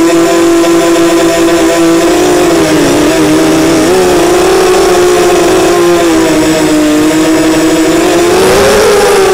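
ZMR250 racing quadcopter's Cobra 2208 2000 kV brushless motors spinning HQ 5045 props, heard from the onboard camera: a loud, steady buzzing whine that wavers slightly with throttle and rises and falls once near the end.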